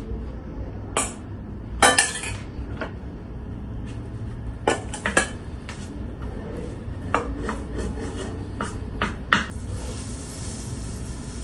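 Spoon or spatula knocking and scraping against a cooking pot as sieved potato is stirred into melted butter, in scattered irregular clinks. A steady sizzling hiss comes in near the end.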